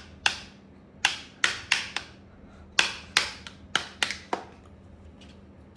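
Plastic vacuum cleaner attachment being knocked against the wand or tube about ten times in quick, uneven succession while it refuses to push in and lock.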